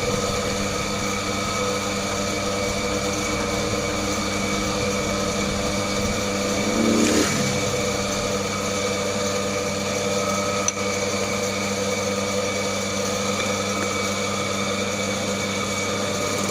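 A workshop machine's motor running with a steady hum. There is a brief louder scraping swell about seven seconds in and a single sharp click near eleven seconds.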